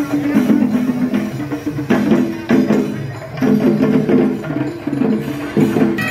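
Procession band music: drums and hand percussion beating under a melody played in short repeated phrases.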